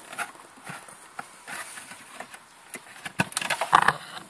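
Hands working a plastic wiring harness connector loose from a car's rear light: scattered plastic clicks and knocks, louder and closer together about three seconds in.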